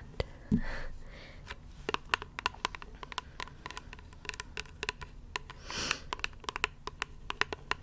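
A rapid, irregular run of small close-miked clicks, with a brief low thump about half a second in and a short breathy hiss near six seconds.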